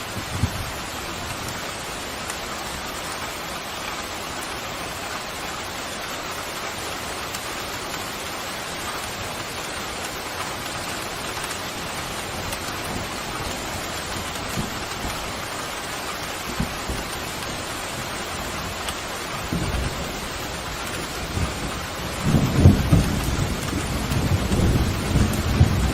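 Steady rain pouring, with thunder rumbling in low about 20 seconds in and growing louder and rolling toward the end.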